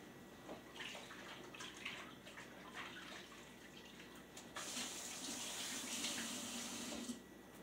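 A kitchen tap running for about two and a half seconds, starting a little past halfway, after a few faint light clicks of handling.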